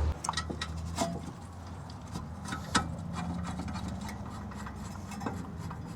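Scattered clinks and knocks of a steel brake bracket and hand tools being handled while the bracket is fitted back onto the hub, with a sharper knock a little under three seconds in. A faint steady hum runs underneath.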